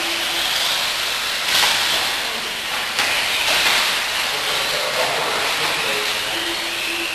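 Radio-controlled off-road buggies racing on a dirt track: a steady hiss of tyres and thrown dirt with the whine of electric motors rising and falling. Louder surges come about a second and a half in and again at three seconds.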